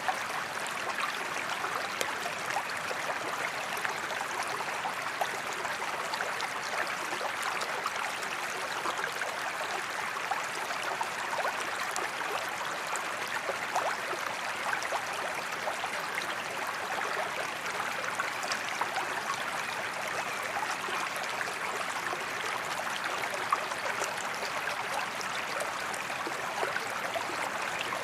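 A forest creek running steadily, a dense trickling and babbling of water over stones.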